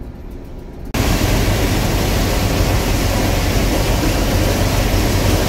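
A faint low hum, then about a second in a sudden switch to the loud, steady running noise of a Gleaner combine harvesting standing corn: an even rushing noise over a low engine hum.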